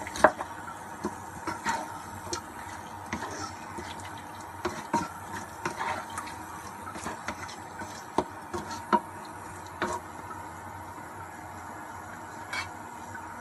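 Wooden spatula stirring chicken and vegetables in curry broth in a stone-coated wok: irregular knocks and scrapes against the pan with liquid sloshing.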